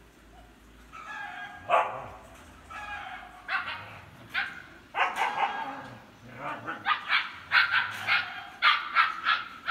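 Huskies barking and yipping, with whining, wavering calls between the barks. The barks come quicker and louder in a fast run over the last few seconds.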